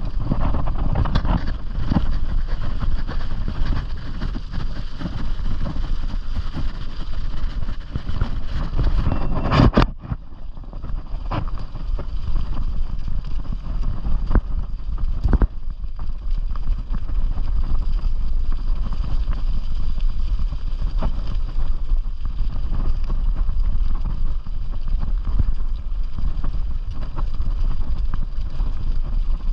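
Bicycle tyres rolling over a leaf-covered gravel track, with wind buffeting the microphone and small rattles from the bike over bumps. A couple of sharper knocks stand out, the loudest about ten seconds in.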